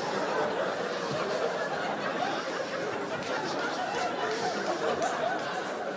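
Audience laughing, many voices at once, at a steady level.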